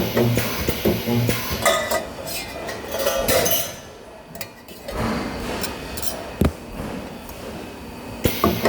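Resistance spot welder firing two short weld pulses near the start, each a brief low buzz. Clanking and clinking of metal parts being handled runs around them.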